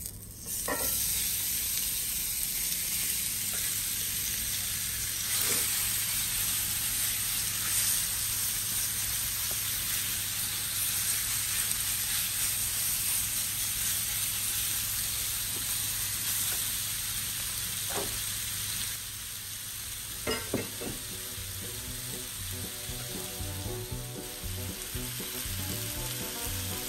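Cubes of seasoned New York strip steak sizzling steadily in a smoking-hot cast iron skillet oiled with grapeseed oil, the sizzle starting about half a second in as the meat hits the pan and easing a little about two-thirds through. A few short knocks sound as the pieces go in and are spread out.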